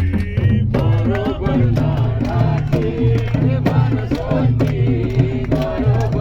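Background music: a wavering melody over bass notes and a regular percussive beat.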